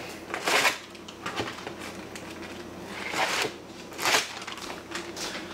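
Plastic zip-top bags crinkling as they are handled and opened, in three short rustles about half a second, three seconds and four seconds in.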